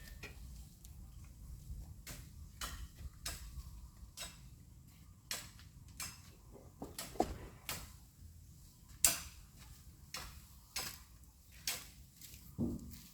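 A series of irregular sharp clicks and knocks, roughly one every half-second to a second.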